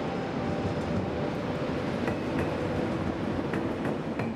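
TGV inOui double-deck high-speed train rolling past along a station platform: a steady rumble with a few sharp clicks from the wheels on the rails.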